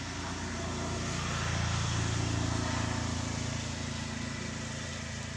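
A motor engine's low, steady hum, swelling about a second and a half in and then slowly fading, as a passing vehicle would.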